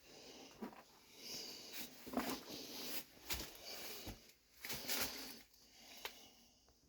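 A person breathing hard through the nose while clambering down, with irregular scuffs and several sharp knocks of hands and feet against rock.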